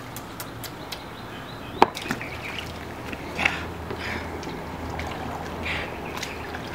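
Water sloshing and splashing in a plastic kiddie pool as a Dogue de Bordeaux puppy wades and mouths a toy, with a sharp knock about two seconds in.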